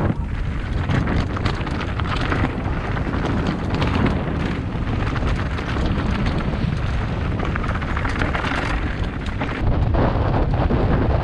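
Wind buffeting the microphone over the steady rumble of a mountain bike riding a rough trail, with frequent short knocks and rattles from the bike.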